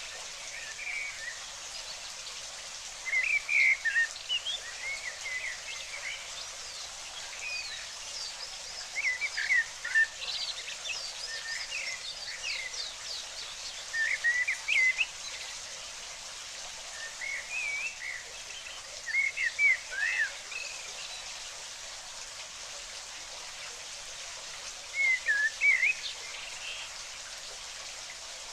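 Small songbird chirping in short bursts every few seconds, each a quick run of rising and falling notes, over a steady hiss of running water.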